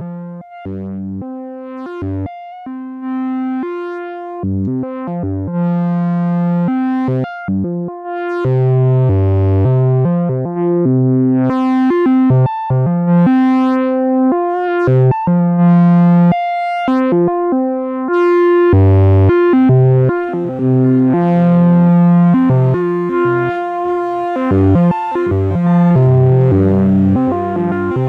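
Optotronics modular synthesizer playing a slow sequence of pitched notes, each a steady tone with a full stack of overtones, separated by short breaks. The notes get louder after about eight seconds and run together more densely toward the end.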